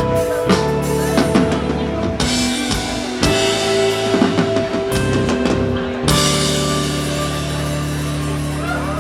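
Live rock band playing an instrumental passage with drum kit and sustained guitar and bass notes. About six seconds in, the drums stop on a final loud hit and the last chord is left ringing, as the song comes to its end.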